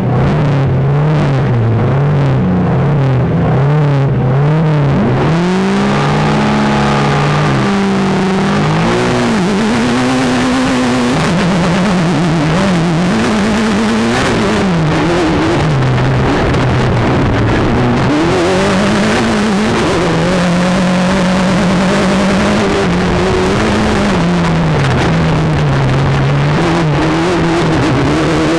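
Mitsubishi Evo turbocharged four-cylinder engine of an off-road race sedan, heard from inside the car under racing load. Its pitch rises and drops again and again as it revs up and shifts through a six-speed sequential gearbox.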